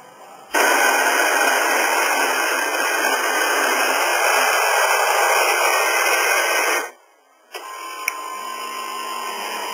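Quick Mill Monza super-automatic espresso machine's built-in coffee grinder starting abruptly, running loud and steady for about six seconds, then cutting off sharply. After a short pause a quieter motor starts running.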